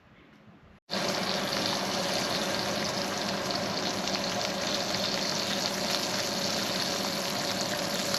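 Steady rush of running water, cutting in abruptly about a second in.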